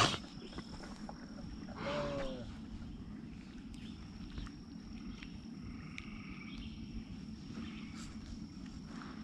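Outdoor creek-side ambience: a steady high-pitched insect drone over a low rumble, with a brief low voice-like call about two seconds in.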